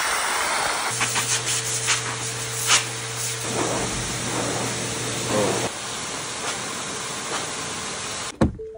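Dog grooming blow dryer running with a steady rushing hiss as it blows through a dog's long wet coat, then switching off abruptly near the end.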